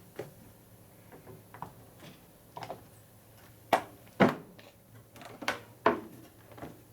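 A handful of separate sharp knocks and clunks, about six, the loudest between about halfway and near the end: tools and metal front-end parts being handled and set down during fork and steering-head assembly.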